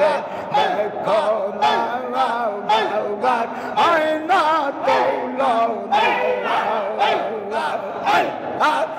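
Male voices chanting a devotional zikr song together, a lead voice amplified through microphones, with a sharp rhythmic pulse about twice a second.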